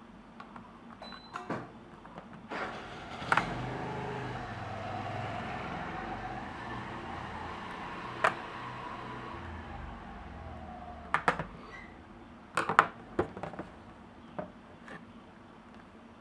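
Sharp clicks and knocks of small parts being handled, in a few separate hits and a quick cluster near the end, over a steady hum that fades out about two thirds of the way through.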